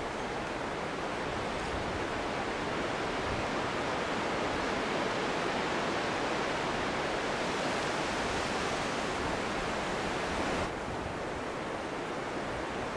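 Steady rush of a fast, rocky mountain river. Near the end it drops suddenly to a lower level.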